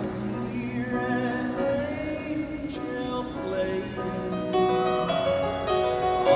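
Male Southern gospel quartet singing in close harmony with piano accompaniment, holding long notes that change pitch every second or so.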